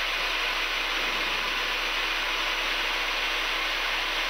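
Steady rushing noise of air and engines in the cockpit of a Cessna Citation business jet in its climb, even throughout, with a faint steady hum underneath.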